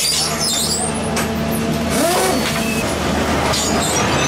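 A Scheuchzer PUMA-S track renewal train running steadily with a constant low engine hum. There are short high metallic squeaks near the start and a brief rising-and-falling squeal about two seconds in.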